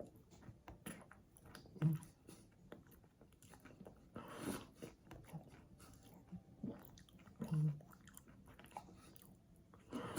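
Mouth sounds close to the microphone: soft chewing and lip-smacking clicks, with a breathy swell about four and a half seconds in.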